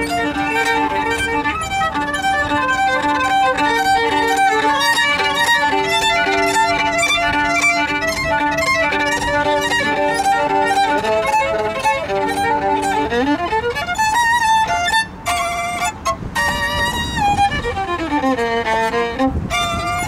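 Solo violin playing a melody over a held lower note for the first half, then long sliding notes: one rising about two-thirds of the way through and one falling near the end.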